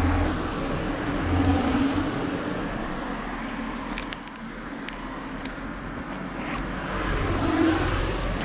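A motor vehicle's engine running, its low hum louder at the start and swelling again near the end.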